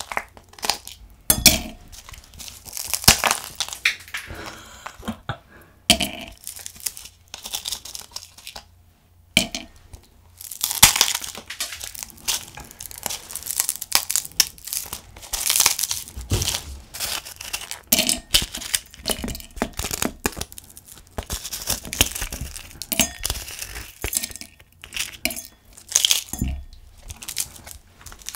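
Ice cubes cracking and popping loose as a light blue ice cube tray is twisted and pressed, a run of irregular snaps and crackles with short pauses, and freed cubes clinking into a glass tumbler.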